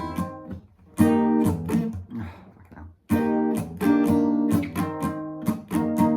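Guitar strumming chords in short, sharp strokes, with a pause of about a second partway through before the strumming resumes.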